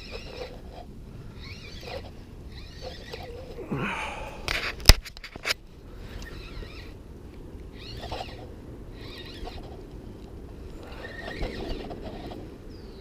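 Noises of fighting a hooked pickerel from a kayak: short swishing rustles recurring about once a second, and a sharp knock about five seconds in, followed by a weaker one.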